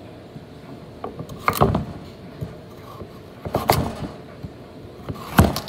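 Chef's knife cutting through carrots onto a wooden cutting board: three short bursts of crunching knocks about two seconds apart, the last the loudest.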